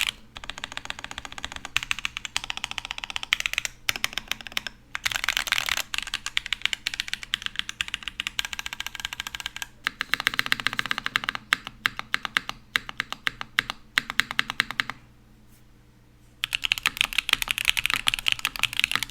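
Typing on a top-mount mechanical keyboard with a polycarbonate case, an aluminum plate and stock Gateron Beer tactile switches under GMK Jamón keycaps: fast runs of keystrokes, with a pause of about a second and a half near the end before the typing picks up again.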